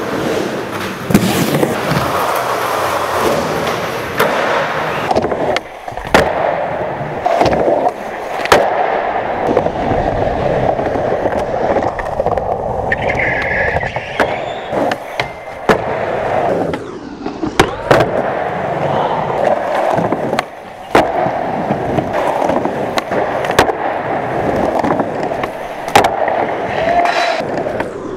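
Skateboard wheels rolling over plywood ramps and concrete, broken again and again by sharp tail pops, landings and board slaps. About halfway through, the board scrapes along a metal rail in a short grind.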